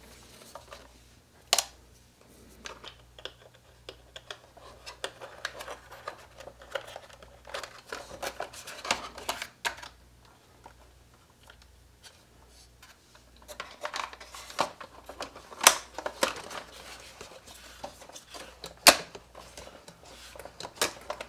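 Hard plastic RC crawler body shell being handled and fitted onto its chassis: scattered clicks and knocks of plastic on plastic, with a sharp snap about a second and a half in and two more near the end.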